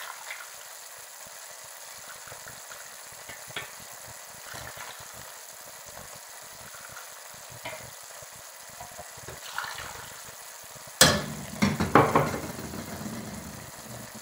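Hot water poured from a mug into a pot of rice sautéed in oil, the water sizzling and bubbling on the hot pan, with a few small clinks. About eleven seconds in comes a sudden loud knock followed by a louder burst of sizzling.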